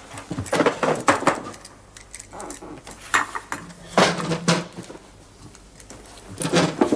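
A scatter of knocks and clinks from hard objects being handled and set down, in several separate groups.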